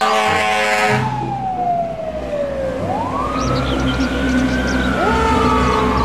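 Fire truck siren wailing: it falls in pitch, sweeps back up and slowly falls again, after a loud horn blast in the first second. A second siren comes in about five seconds in, over the low rumble of the trucks' engines.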